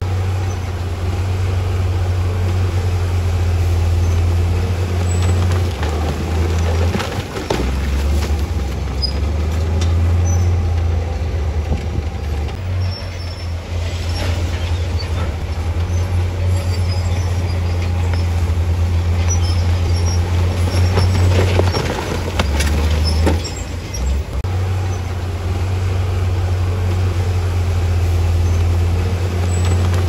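Bulldozer's heavy diesel engine running under load, a deep steady drone that eases for a moment a few times, with scattered metallic knocks and clanks from the machine at work.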